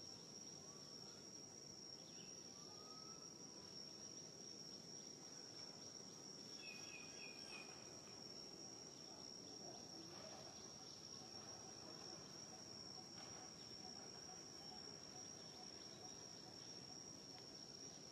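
Faint forest ambience: a steady, unbroken high-pitched insect drone, with a brief series of faint chirps about seven seconds in.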